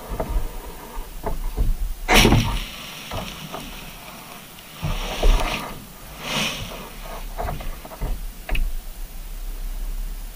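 Irregular knocks and thumps on an underwater camera housing and seabed lander frame, with a few short, loud rushing bursts, as a small deep-sea shark bumps the lander and stirs up the sediment.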